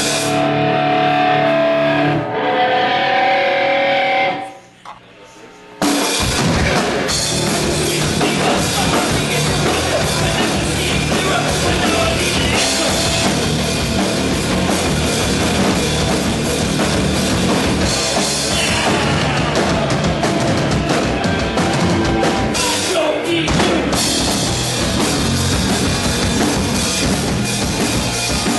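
Hardcore punk band playing loud and live with drum kit and guitars. The first few seconds are held guitar notes, then a brief drop, and about six seconds in the full band comes in heavy and keeps going.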